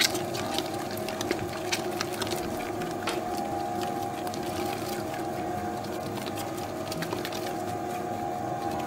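Electric dough mixer running steadily, with a hum of several steady tones, as it kneads a soft, high-hydration pizza dough that is having water worked in a little at a time. Light clicks come now and then, most of them in the first three seconds.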